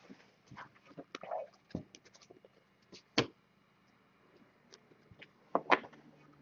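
Trading cards being handled on a wooden table: a scatter of light clicks and taps as the cards are stacked, squared and sorted, the sharpest about three seconds in and a couple more near the end.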